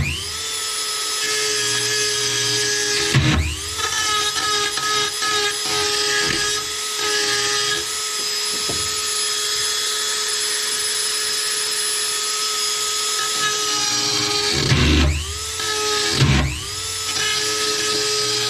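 Dremel rotary tool running at high speed with a steady whine while grinding to make a wiring grommet fit. Its pitch drops and climbs back up about three seconds in and twice near the end, as the tool bogs against the work and spins up again.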